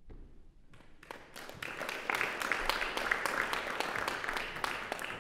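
Audience applauding: dense clapping that starts thinly about a second in, quickly swells, holds steady, and begins to thin near the end.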